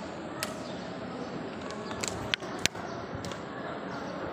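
Handling knocks and clicks on a handheld phone's microphone over steady background noise; the two loudest knocks come about two and a half seconds in, a quarter of a second apart.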